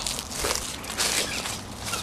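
Footsteps crunching on gravel, a few steps roughly half a second apart.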